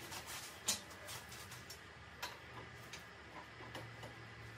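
A few faint clicks and light knocks, the sharpest about two thirds of a second in, as a tubular steel flatbed is handled and lowered onto a power barrow's steel frame.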